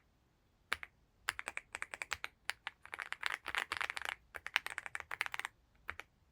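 Typing on a Leobog Hi75C Pro aluminium-case mechanical keyboard: a couple of keystrokes about a second in, then fast runs of keystroke clacks with short pauses, thinning out near the end.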